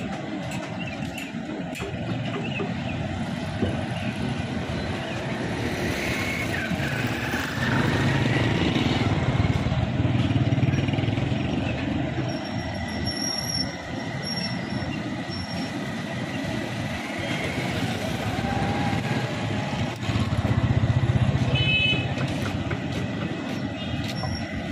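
Street traffic: a steady hum of passing vehicles, swelling louder twice as vehicles go by.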